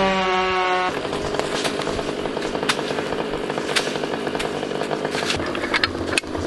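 Stihl MS 500i two-stroke chainsaw running flat out in a cut for about the first second. It then breaks off abruptly into a steady rasping noise with scattered sharp clicks.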